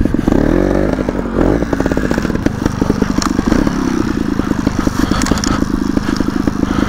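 A 300 cc two-stroke off-road motorcycle engine running at low revs while being ridden. The revs rise and fall briefly about half a second in and again at about a second and a half, then it runs steadily.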